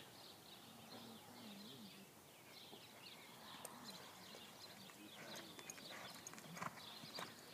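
Faint hoofbeats of a horse loping on a dirt arena, clearer near the end, with birds chirping in the background.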